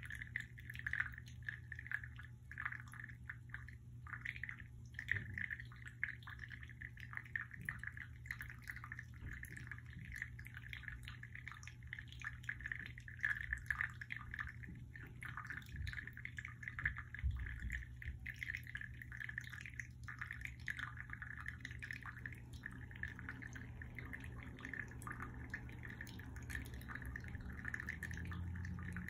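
Irregular dripping, trickling sound: many quick soft ticks running on over a low steady hum.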